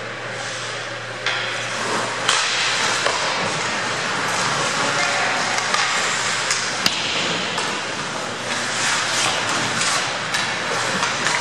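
Ice hockey play in a rink: skate blades scraping and hissing on the ice, with sharp clacks of sticks and puck several times, the loudest about two seconds and seven seconds in, and players calling out.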